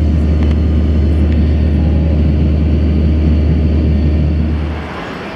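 Steady low drone of an airliner cabin in flight, engine and airflow noise. It drops away sharply near the end.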